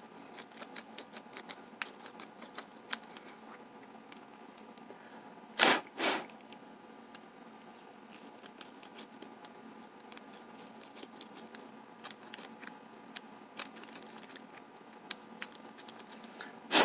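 Light scraping and irregular small metal clicks as a countersinking bit bevels the pin holes of a padlock cylinder. Two pairs of sharp knocks stand out, about six seconds in and again at the very end.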